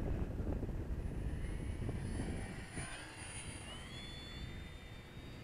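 Small electric RC model plane's motor and propeller whining as it flies past, the whine rising in pitch about three and a half seconds in. Wind rumble on the microphone fades over the first half.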